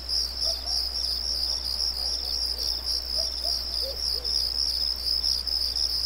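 Chorus of chirping insects: a high, evenly pulsing trill that keeps on without a break, with a few faint lower chirps in the middle.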